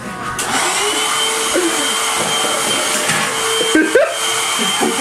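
Electric stick vacuum cleaner switched on just after the start, its motor spinning up and then running steadily with a high whine. A brief louder sound cuts in just before four seconds in.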